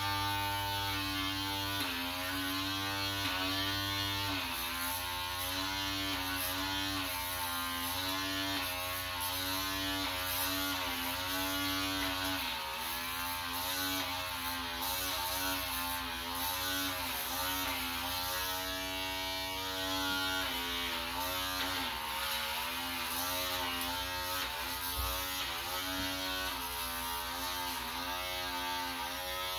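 Battery-powered back shaver buzzing steadily while it is worked across a man's back, its pitch sagging and recovering every second or two.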